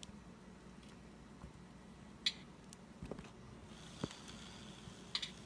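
Sparse, sharp drip-like ticks and a few dull knocks from an HO-scale SD40-2's ESU Loksound decoder playing its after-shutdown dripping effects, over a faint steady hum. The sharpest tick comes a little over two seconds in, and another pair near the end.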